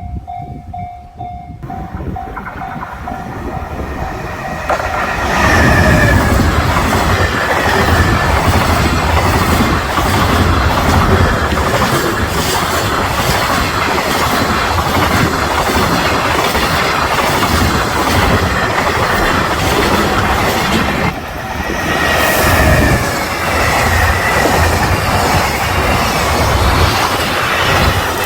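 Japanese level-crossing warning bell ringing in an even repeating tone. An EF510 electric locomotive and its train of Koki 100-series container wagons then pass at high speed, the loud rush reaching its full level about five seconds in. The wheels clack rapidly over the rail joints, with a brief easing near the end.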